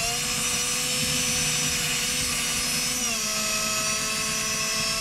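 Cordless drill running steadily under load as it bores a pilot hole through carpet and plywood flooring. Its motor whine dips slightly in pitch about three seconds in.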